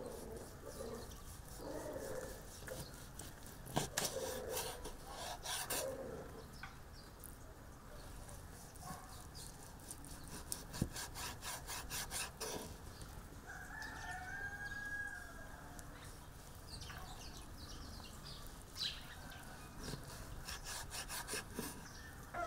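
Large kitchen knife sawing through rolls of beef wrapped in lamb fat and striking a wooden cutting board, in short bouts of strokes. Chickens cluck in the background.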